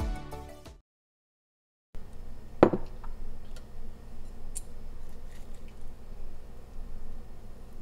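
Background music fading out, then a moment of silence. Then one sharp clink of chopsticks against a small ceramic bowl, with a short ring, followed by a few faint small clicks over a steady low hum.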